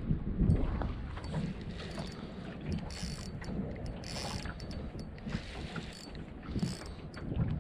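Spinning reel being wound in short spells, with wind buffeting the microphone.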